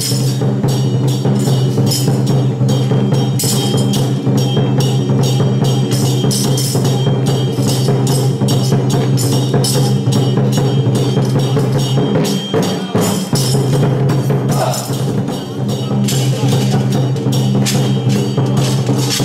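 Gong-and-drum ensemble of a Song Jiang battle-array troupe: drums, gongs and cymbals struck in a fast, continuous rhythm over a steady low ringing, with a short lull about two-thirds of the way through.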